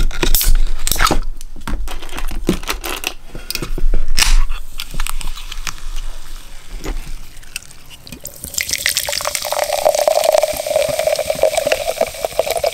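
Clicks and knocks of a drink being handled, then Mountain Dew soda pouring and fizzing, with a steady hiss from about eight seconds in.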